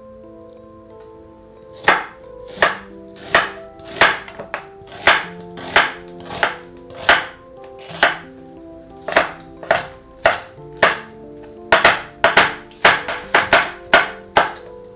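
Kitchen knife chopping onion and then green chili peppers on a wooden cutting board: sharp knocks of the blade on the board, starting about two seconds in and coming about every half second, quickening near the end. Soft background music plays under it.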